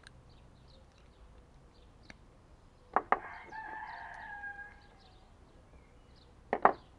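A rooster crowing once, a single drawn-out call of about a second and a half starting about three seconds in. There are two pairs of sharp clicks, one just before the crow and one near the end. Faint high bird chirps are heard throughout.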